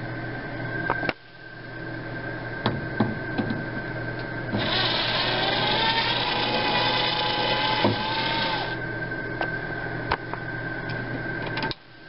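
A power drill-driver runs for about four seconds in the middle with a steady motor whine, backing out the screws that hold an RV microwave in place. Scattered clicks and taps of tool handling come before and after it.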